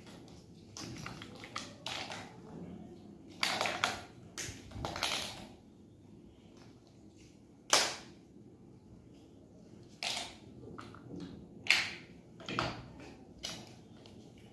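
Large plastic building blocks clattering and clicking as they are picked up, knocked together and pressed onto a stack, in irregular knocks with the sharpest about 8 and 12 seconds in.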